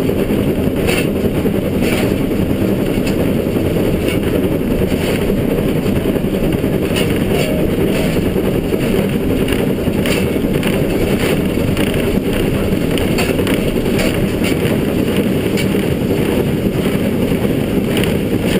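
Steady, loud roar inside the cab of LNER Class K4 steam locomotive No. 61994 working a train uphill: exhaust, running gear and cab rattle blended together, with faint sharp clicks about once a second.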